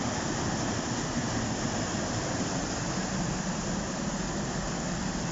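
Waterfall rushing steadily: a constant, even noise of white water pouring over rocks.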